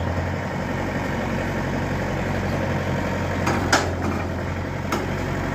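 Heavy diesel engine of farm machinery running steadily at idle. There are a few brief sharp noises in the second half.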